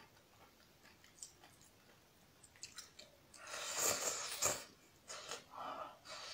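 Close-up mouth sounds of eating noodles: soft, faint chewing at first, then loud wet slurping and chewing from about three and a half seconds in, with a second burst near the end.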